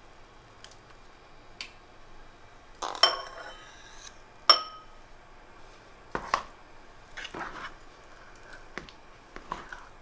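Metal spoon and knife clinking and scraping against a metal loaf tin and a ceramic bowl while apple crumble is served. There are two sharp ringing clinks about three and four and a half seconds in, with softer taps and scrapes either side.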